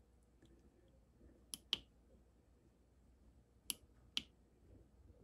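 Faint clicks of the push buttons on an Inkbird STC-1000 digital temperature controller as a finger presses them: four short, sharp clicks, a pair about a second and a half in and another pair near the end.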